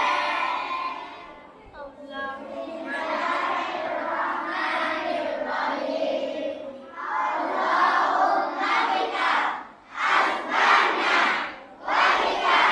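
A large group of children chanting together in unison, with loud separate shouted phrases coming about once a second near the end.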